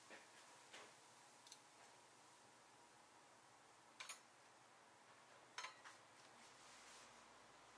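Near silence with a few faint, sharp clicks, the clearest a quick double about four seconds in and another about five and a half seconds in.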